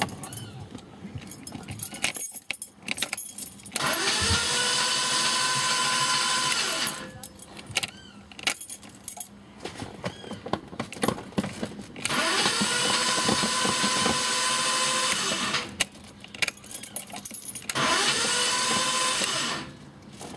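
A 1991 BMW 525i's starter cranking the engine three times without it catching. There are two attempts of about three seconds each and a shorter one near the end, each with a whine that winds up and then down, and clicks and key rattles between them. The car will not start, which the owner suspects is a fuel problem: a clogged fuel filter or a failing fuel pump.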